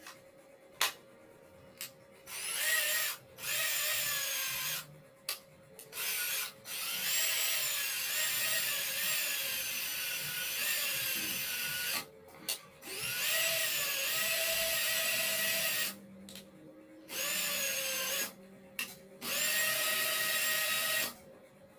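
Ingco 18 V cordless drill with a replacement motor being test-run in a series of trigger pulls, about seven in all. Each time the motor spins up with a rising whine and runs steadily, the longest run lasting about five seconds. Short clicks come between the runs.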